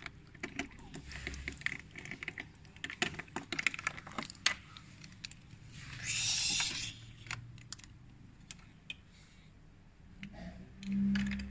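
Small plastic toy pieces and dolls being handled, giving a run of light, irregular clicks and taps, with a brief rustle about six seconds in. A low steady hum starts near the end.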